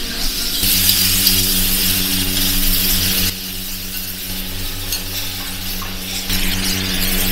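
Hiss of a handheld gas blowtorch searing a pork steak on a flat-top griddle, with the meat sizzling, over a steady low kitchen hum. The hiss drops away a little after three seconds and comes back near the end.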